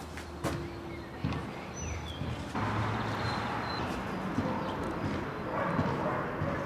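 Scattered clicks and knocks from handling a tripod and levelling a camera on its ball head, over outdoor background noise that grows louder partway through.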